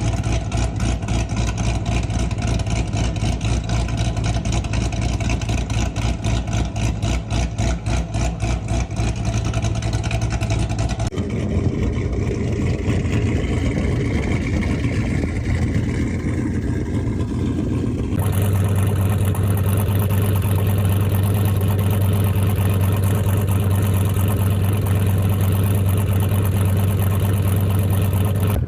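Car engines with aggressive camshafts idling, heard one after another. The first has an even, choppy pulsing idle. The sound cuts to a different engine about eleven seconds in and to another, steadier one about eighteen seconds in.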